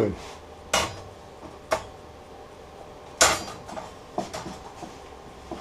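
Handling clatter in a workshop: a few sharp knocks and taps of objects being moved and set down, the loudest about three seconds in, followed by lighter ticks.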